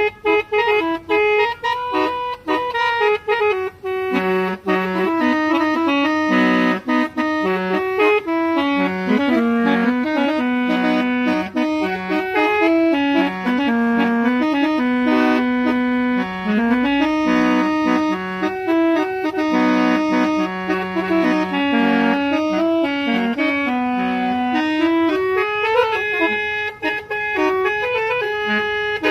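Old-style musical horn playing a tune in held, reedy notes that step up and down in pitch, one after another without a break.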